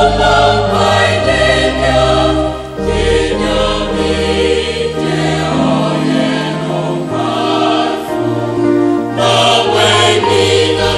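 Mixed-voice choir singing a sacred piece in parts, over organ accompaniment with held low bass notes that drop out for a moment midway.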